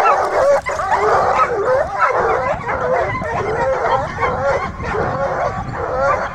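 A pack of hounds baying and yelping together as they run, many voices overlapping with no break.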